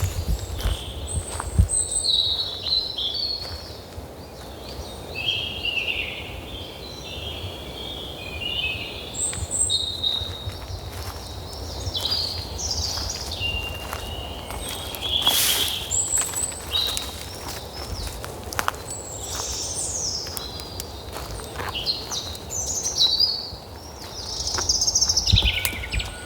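Several birds singing and chirping in short phrases and trills over a steady low rumble, with scattered sharp clicks and one brief rustling burst about halfway through.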